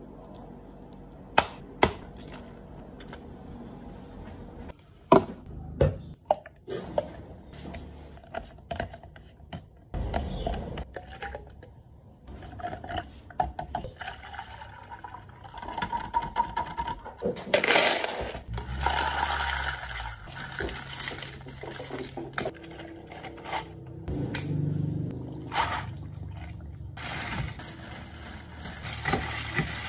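Drink-making sounds: several sharp knocks of cups and containers set down on a counter in the first few seconds. About halfway through, tea is poured in a long splashing stream from a plastic measuring jug into a plastic cup, and near the end the drinks are stirred.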